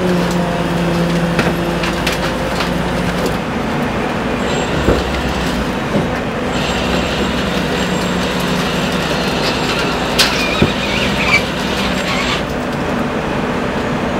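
A truck engine idling, a steady low hum, with a few light clicks and knocks about five, six and ten seconds in.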